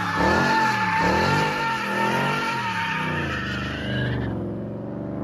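Car engine revving up and down in quick repeated swells while the tyres squeal in a steady screech. The squeal dies away about four seconds in, leaving the engine running more evenly.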